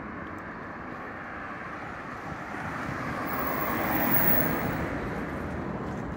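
A car passing on the street, its tyre and engine noise growing to a peak about four seconds in and then fading, over steady background traffic.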